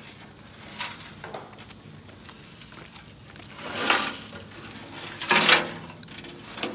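Rusty steel fuel tank from a 1965 VW Beetle being handled and tipped onto its edge: two loud bursts of scraping and rattling sheet metal, about four and five and a half seconds in.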